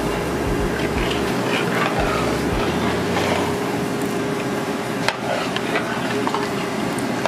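Curry sauce frying and sizzling in oil in an aluminium pot as a steel ladle stirs it, scraping and knocking against the pot, with a sharp knock about five seconds in. A steady hum of the kitchen runs underneath.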